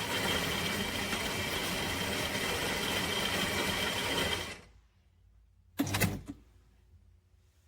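Philips Baristina espresso machine running steadily with a mechanical buzz, stopping about four and a half seconds in. A short clunk follows about a second and a half later.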